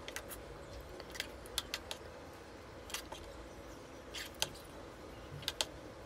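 Faint, irregular clicks and taps of a utensil against the pot and cups as thick milk pudding is portioned into cups, about a dozen light knocks scattered over a quiet background.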